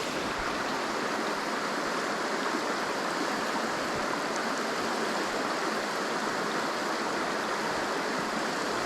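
Creek water flowing, a steady even rushing.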